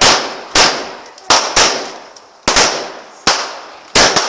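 Fireworks going off: a rapid run of about eight loud, sharp bangs at uneven intervals, each trailing off in a short echo.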